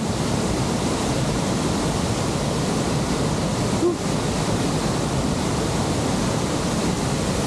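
Waterfall and its fast-flowing stream rushing steadily.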